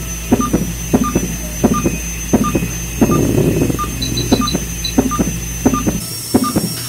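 Ultrasonic dental scaler running on a dog's teeth: a thin, steady high whine with a hiss of water spray swelling around the middle. A short beep repeats about every two-thirds of a second throughout.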